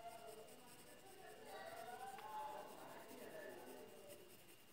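Faint scratching of a graphite pencil shading on drawing paper.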